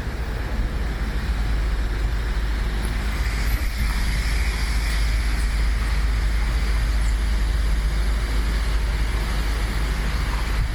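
Steady outdoor background noise with a heavy low rumble, of the kind passing road traffic makes.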